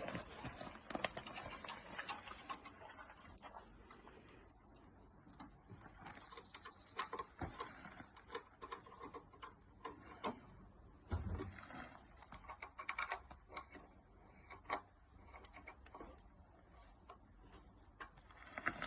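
Irregular small clicks and taps of metal Allen keys and screw fittings being worked on the flood barrier's posts and boards, over a faint steady hiss.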